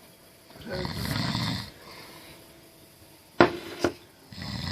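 A person snoring: two long snores about three and a half seconds apart, with two sharp clicks between them.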